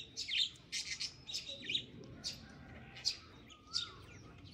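Kingfisher nestlings giving short, high-pitched begging calls, about two a second in an irregular series, as they wait to be hand-fed small fish.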